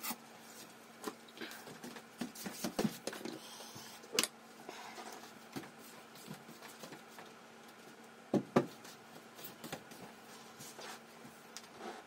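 Scattered light clicks and knocks from handling a Columbia GP-17 record player's wooden case as its lid is taken off, with sharper knocks about four seconds in and a pair about eight and a half seconds in. A faint steady hum runs beneath.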